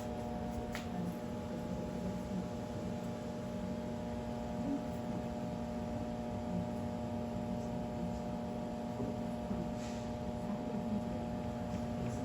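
A steady hum made of several constant tones, with faint short sharp sounds about a second in and again near the end.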